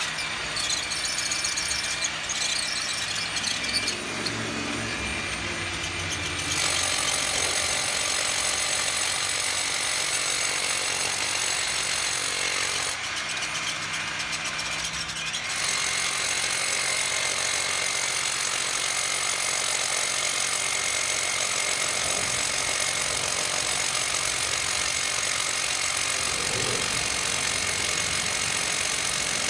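Handheld angle grinder running and grinding, a steady high-pitched noise. It stops for about two seconds roughly halfway through, then runs on; the first few seconds are quieter and rougher.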